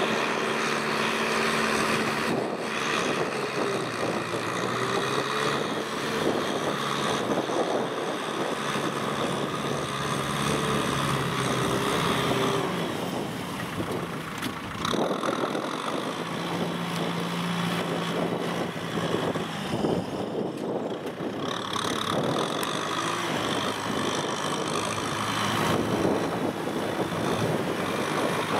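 Kubota M6040SU tractor's diesel engine running hard as the tractor churns through deep mud, its note shifting now and then.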